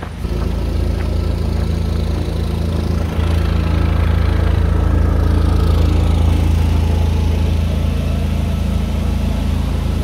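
Generator engine running steadily at constant speed, a loud low hum. It gets louder just after the start and again about three seconds in, then holds steady.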